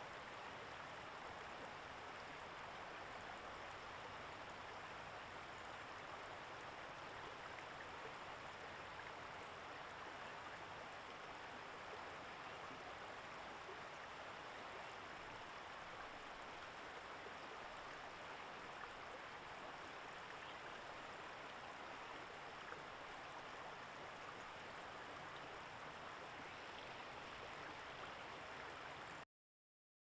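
Steady rush of a flowing river, stopping abruptly near the end.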